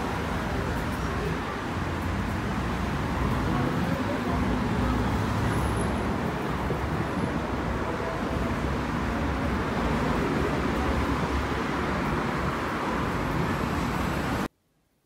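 Steady outdoor traffic noise, a continuous rumble and hiss of road vehicles, which cuts off suddenly near the end.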